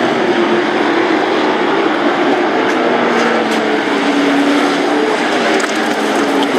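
Several race trucks running together at speed on a short oval: a loud, steady engine drone in which a few engine pitches overlap and drift slightly up and down as the trucks lap.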